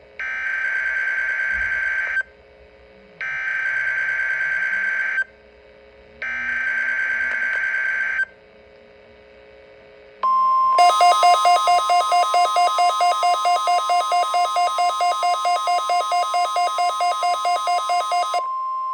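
NOAA Weather Radio Required Weekly Test from a Midland WR120 receiver's speaker: three two-second bursts of warbling SAME digital header data, then about ten seconds in the steady 1050 Hz warning alarm tone. Shortly after the tone starts, rapid pulsing beeps join it, about four to five a second, and stop just before the tone ends.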